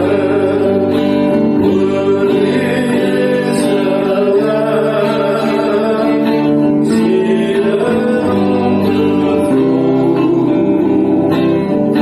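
Congregational worship song: singing over a strummed guitar accompaniment.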